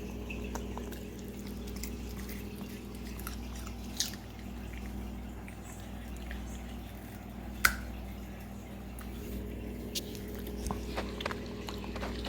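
A puppy eating carrot pieces, with scattered sharp crunching clicks, the two loudest about four and seven and a half seconds in, over a steady low hum.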